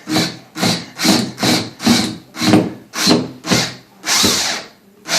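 Power drill driving a screw into the wall, run in short trigger pulses about two a second and then held for one longer run near the end. This is the slow, careful start of driving the screw.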